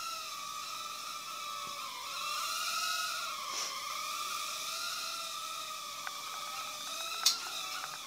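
Cheerson CX-10 nano quadcopter's tiny coreless motors and propellers whining in flight, the pitch wavering up and down as the throttle changes. About seven seconds in there is one sharp knock, the loudest sound, as the quad comes down near the floor, and the whine stops right at the end.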